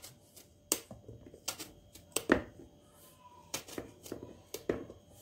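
Knife cutting a stripe-peeled eggplant into cubes in the hand, the cubes dropping into a plastic bowl: about ten quiet, sharp clicks and taps at irregular spacing.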